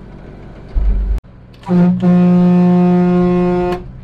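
Semi truck air horn blowing one long blast of about two seconds, its pitch rising briefly as it starts and then holding steady. Before it, a low rumble of the truck cab cuts off abruptly about a second in.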